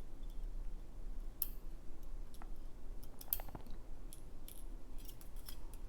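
Scattered light metallic clicks and taps as small lock pins and springs are pulled from a pin-tumbler lock's chambers and set down.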